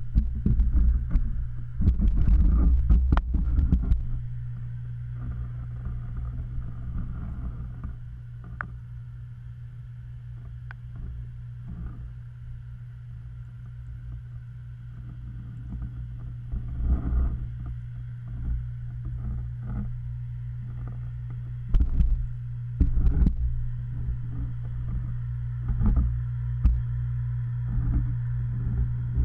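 Underwater sound in a koi pond: a steady low hum from the pond's pump, with muffled bumps and rumbles from the camera housing moving in the water, heaviest in the first few seconds and again about 22 seconds in.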